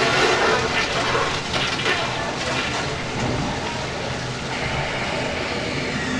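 Airport restroom recording played from a vinyl record: a steady rushing hiss, loudest in the first second, with voices faint beneath it.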